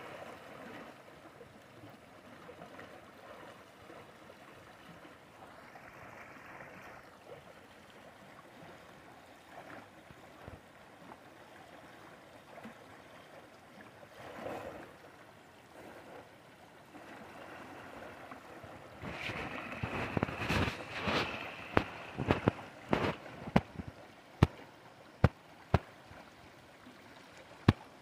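Shallow river water running steadily over rocks. About two-thirds of the way in, sharp separate raindrop taps begin, loud and about one a second near the end.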